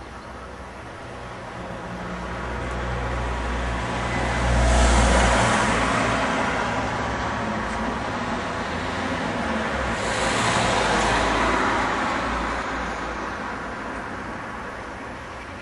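Road traffic: two vehicles pass one after another, the noise swelling and fading about five and ten seconds in. The first has a heavier, deeper rumble.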